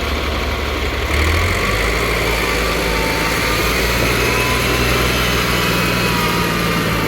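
Heavy diesel machinery engine running steadily, its note stepping up slightly about a second in, with a faint high whine over it.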